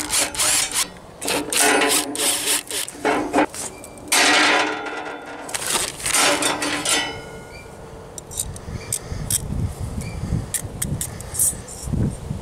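Steel grill cooking grate and coiled metal spring handle covers clanking and scraping against each other as the springs are fitted onto the grate's wire handles. The clatter is dense for the first several seconds, then gives way to softer clicks and rubbing.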